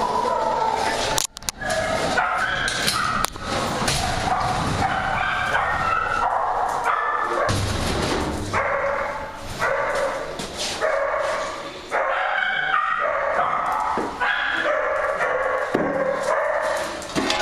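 A kennel full of dogs barking at feeding time: many barks and yelps overlapping into a continuous din, with a brief lull about a second in.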